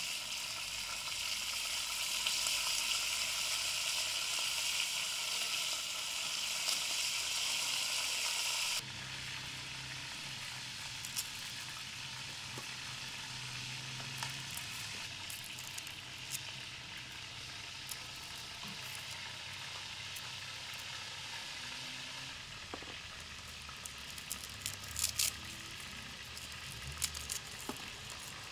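Chicken pieces sizzling steadily as they fry in oil in a pot on a wood-fired stove, cut off abruptly about nine seconds in. After that, a knife cutting an onion, with scattered light clicks and taps.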